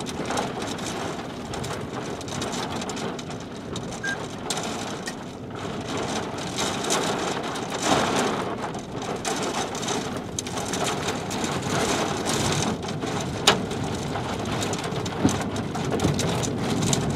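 Steady crackling patter of rain, with scattered sharp ticks and one louder tick about 13 seconds in.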